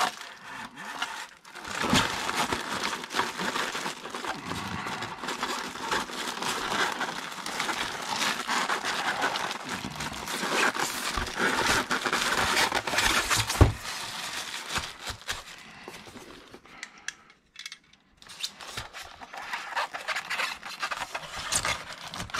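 Clear plastic wrap crinkling and a styrofoam packing tray rubbing and scraping as a wrapped die-cast model truck is worked back into its foam insert, with one sharp knock a little past halfway and a short lull near the end.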